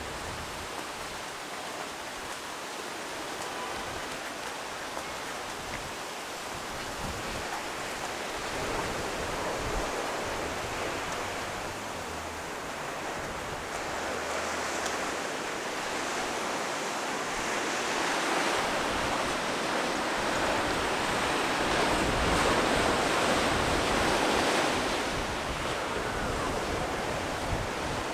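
Ocean surf breaking and washing ashore: a steady rush that swells louder in slow surges, strongest in the second half.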